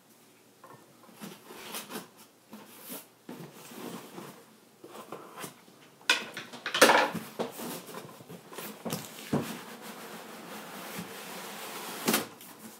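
Cardboard box being handled and opened: scattered taps and rustles, then a louder scrape of the cardboard lid sliding off about six seconds in, followed by steady rustling of cardboard.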